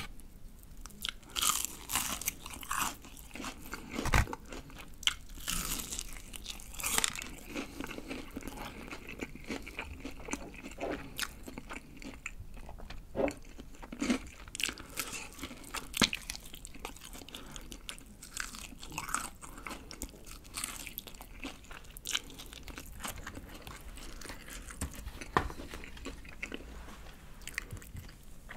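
Crunching bites and chewing of crispy BBQ Golden Olive fried chicken. A dense run of crackles comes in the first several seconds, then slower, sparser crunches with chewing between them.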